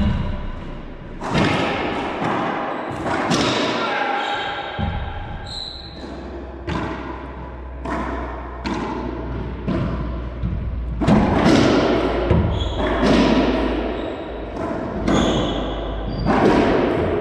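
Racquetball rally in an enclosed court: the hollow rubber ball struck by racquets and rebounding off the walls and floor, a string of sharp, echoing smacks at irregular intervals.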